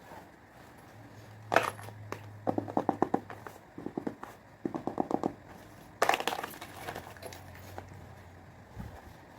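Hands handling album packaging: a sharp crackle, then two bursts of rapid crinkling ticks, and another sharp crackle about six seconds in.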